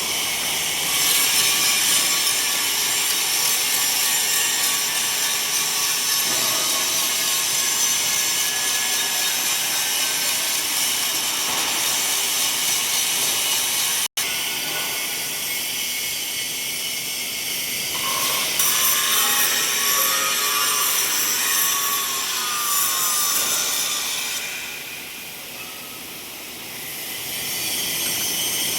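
Angle grinder finishing a metal pipe, a steady high-pitched grinding noise. It cuts out for an instant about halfway and eases off for a couple of seconds near the end, as if the disc is lifted from the metal.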